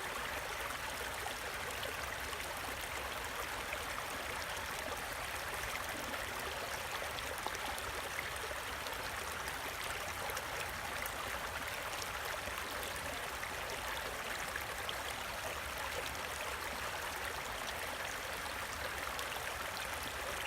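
Creek water running steadily, an even, unbroken rush of flowing water.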